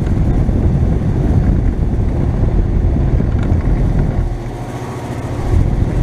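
Outdoor unit of a 2018 Goodman GSZ14 3-ton heat pump running in heat mode: a steady low rumble and rush from the condenser fan and compressor. It eases briefly about four and a half seconds in, then comes back up.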